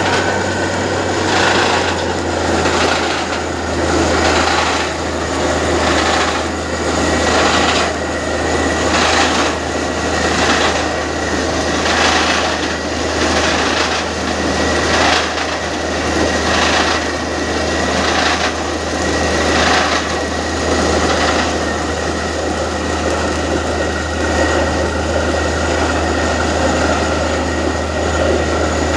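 Borewell drilling rig at work: a steady low engine hum under a loud, harsh noise that pulses about once a second.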